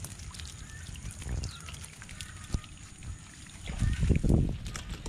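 Small fish patting and flapping as they drop from a bamboo fish trap into a plastic basin, with water trickling off the trap. About four seconds in, a louder rush of water comes as the trap is lifted and tipped.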